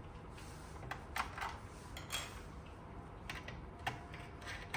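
Scattered small clicks and light taps of a screwdriver working the screw on the SSD bay door of an eGPU enclosure as the unit is handled.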